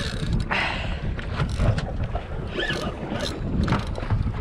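Wind buffeting the microphone over water rushing along a small fishing boat, with a Penn spinning reel being cranked against a hooked fish, giving a few short clicks and rustles.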